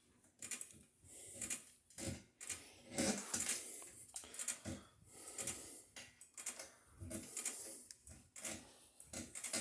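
Faint, irregular clicks, taps and short scrapes of a fire alarm pull station being handled, opened up and cleaned out.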